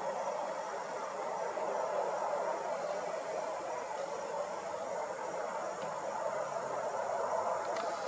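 Steady outdoor chorus of insects, an even continuous drone that holds the same level throughout.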